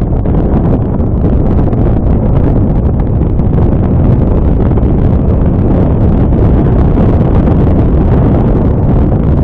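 Steady, loud wind buffeting on the microphone of a moving motor scooter, a Honda Scoopy, with vehicle and road noise underneath.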